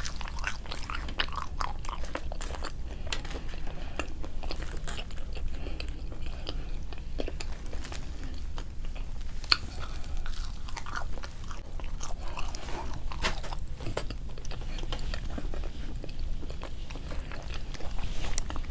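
Close-up chewing and biting of food, with crunchy bites, as a steady run of irregular small crackles and clicks.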